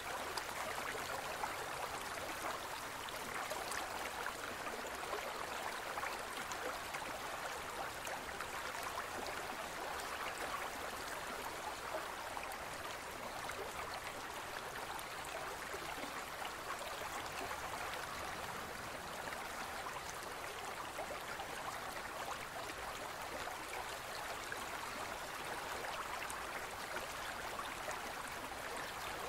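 Steady bubbling and trickling of aquarium water from a rising stream of aeration bubbles, an even hiss with fine crackle that never changes.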